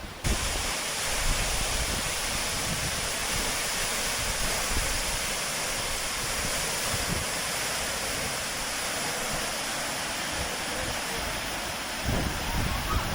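Steady rush of falling water from a waterfall. It begins suddenly just after the start and carries on unbroken, with an irregular low rumble underneath.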